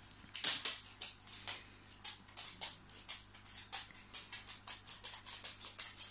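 Chihuahua digging at a fabric blanket with its front paws: a run of quick, scratchy rustles, about three a second, the loudest about half a second in.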